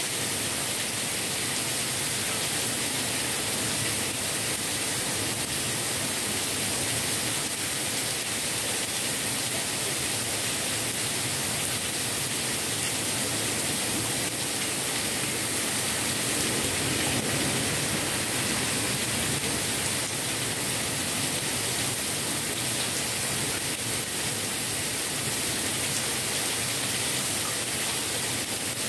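Heavy rain pouring down steadily through a leafy tree and onto a waterlogged lawn and street, an even, unbroken hiss.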